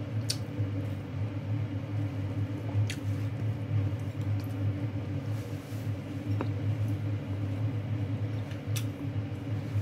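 Eating by hand: a few soft clicks and squishes as lettuce-wrapped rice and chicken is handled and chewed, over a steady low hum.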